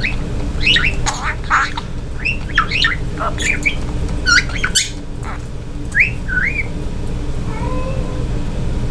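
Pet budgerigar chattering in a quick string of short chirps and squawks for about six seconds, then a softer, lower warble near the end, over a steady low hum.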